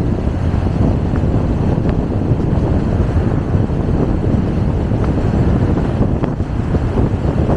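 Steady wind rumble on the microphone of a camera suction-mounted to a moving car, mixed with the car's road and tyre noise.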